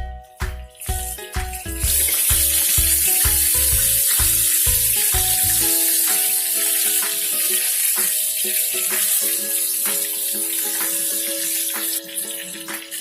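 Food sizzling in hot cooking oil in a pan, starting about two seconds in as a loud steady hiss and dropping off near the end, over background music.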